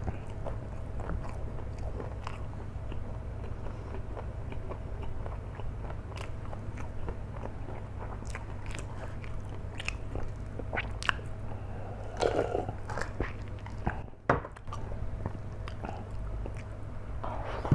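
A person chewing a mouthful of flat rice noodles close to the microphone, with scattered short wet mouth clicks and smacks over a steady low hum.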